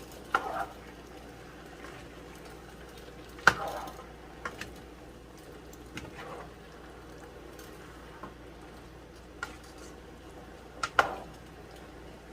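Cooking utensil knocking and scraping against a pot of simmering bottle gourd and pork, about six scattered clinks, the loudest about a third of the way in and near the end, over a faint steady hiss.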